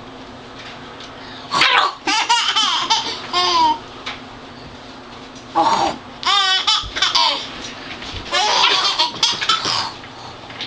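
A young child laughing and squealing in three loud bouts, high-pitched and wavering.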